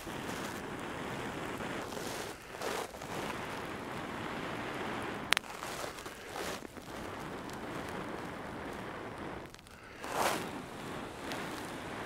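A person blowing long, steady breaths into a smouldering bundle of dry grass that holds a chaga ember, coaxing it toward flame. The blows run a few seconds each, broken by short louder gushes of breath, and there is a single sharp click about five seconds in.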